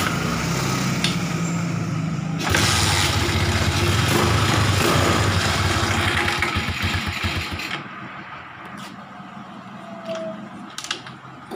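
Motorcycle engine running at idle, then revved up about two and a half seconds in and held at higher revs for about five seconds before dropping back to a much quieter level, with a few light clicks near the end. The revving comes during a check of the charging voltage at the battery.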